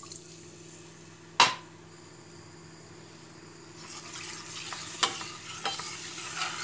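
A metal spoon stirring butter and corn flour in a stainless steel pot just after the water has gone in. There is one sharp knock of the spoon on the pot about a second and a half in. From about four seconds in, sizzling and scraping grow louder, with a couple of clinks, over a steady low hum.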